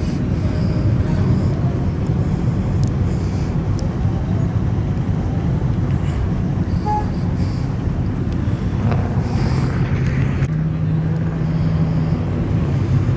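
Truck engines running at low, steady revs: a continuous low rumble with no revving.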